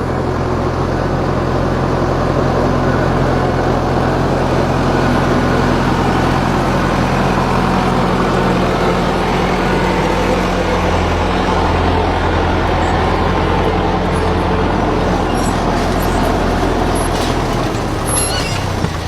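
A vehicle engine running steadily, a constant low hum with broad noise over it; the hum shifts slightly near the end.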